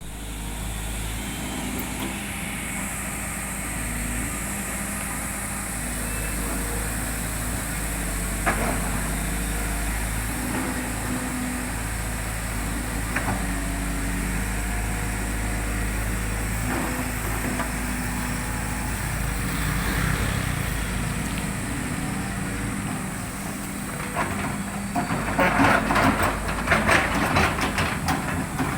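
Heavy diesel engine running steadily, with a few single sharp knocks, then a burst of rapid loud knocks near the end.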